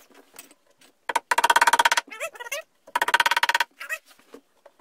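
Compact cordless screwdriver driving a screw into an IKEA bed panel, in two runs of about a second each: a fast, even ticking buzz from the motor. A few light knocks are scattered around the runs.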